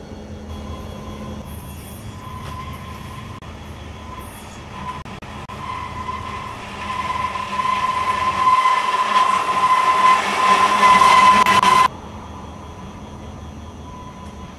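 Freight diesel locomotives running with a steady low rumble, then steel wheels rolling on rail with a steady high-pitched squeal that grows louder. The squeal cuts off suddenly about twelve seconds in, leaving a quieter steady rumble.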